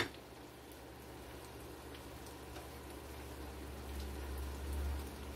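Chicken in a milk-and-bouillon sauce simmering in a skillet on a gas burner, a faint steady sizzle and crackle. A low rumble swells about four to five seconds in.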